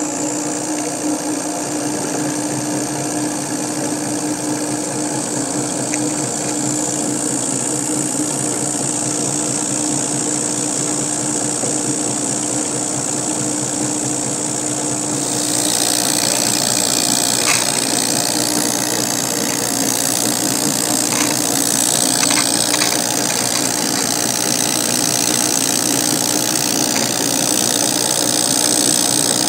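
Milling machine running an end mill through a metal bar, a steady motor hum under a high-pitched cutting hiss. The cutting noise gets louder and higher about halfway through as the cut continues.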